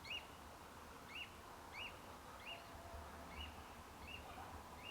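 A bird calling with a single short chirp, repeated at a steady pace of roughly one every three-quarters of a second. It is faint and very noisy, going on without a break.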